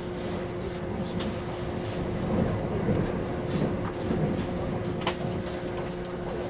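Running noise inside a JR East E657 series limited express train at speed: a steady rumble with two constant hums and a few sharp clicks.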